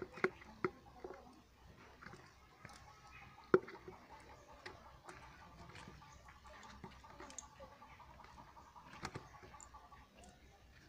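Faint scattered taps and clicks of hands picking small fish out of a fishing net and handling them over a plastic bucket, with one sharper knock about three and a half seconds in.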